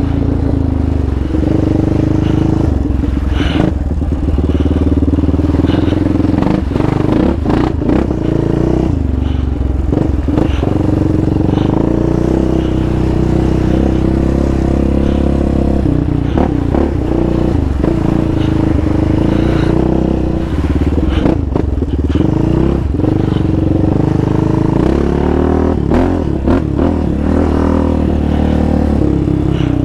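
Yamaha Raptor 700 sport quad's single-cylinder four-stroke engine running at fairly steady trail-riding revs, the pitch rising and easing a little with the throttle. Frequent short clatters and knocks from the quad jolting over the rough dirt trail.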